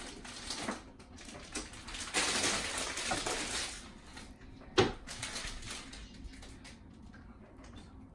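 Rustling and handling noise from a large plastic toy egg being turned in a child's hands, with one sharp knock a little under five seconds in.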